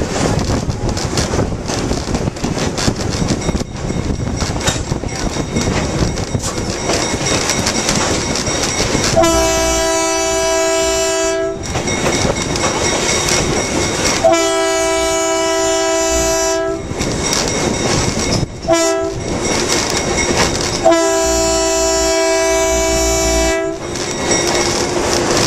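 Diesel locomotive air horn sounding the grade-crossing signal, long, long, short, long, starting about nine seconds in. Underneath, the train rolls with a steady clickety-clack of wheels over jointed rail.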